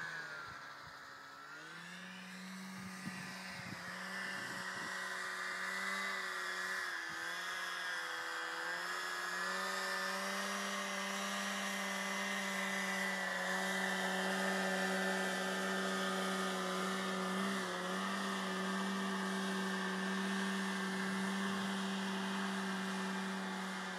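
Snowmobile engine running at a steady pitch, dipping and climbing back in the first couple of seconds, then holding an even drone.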